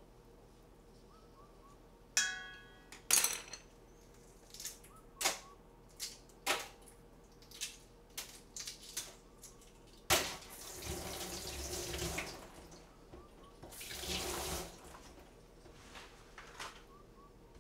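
Kitchen sink tap run twice for a second or two, water rushing into the sink. Before it, a ringing metallic clink and a series of clicks and knocks of utensils and dishes.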